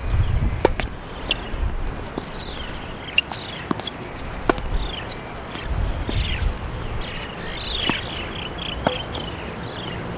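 Tennis ball struck by rackets and bouncing on a hard court: a series of sharp pops, the loudest about half a second in. Birds chirp in the background through the middle and later part.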